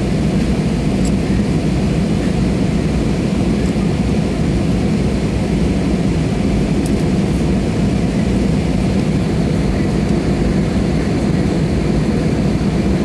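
Aeroplane engines and airflow making a loud, steady drone that stays even throughout, with most of its weight low.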